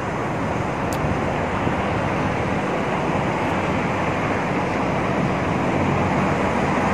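Steady rushing of wind on the microphone over a hum of distant road traffic, with one brief high tick about a second in.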